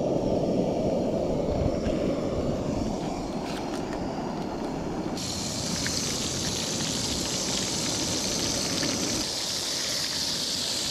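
Breaded crappie fillets frying in hot peanut oil in a skillet on a butane camp stove, the oil bubbling and sizzling, with a brighter hiss joining about five seconds in. A steady low rushing noise runs underneath and fades out near the end.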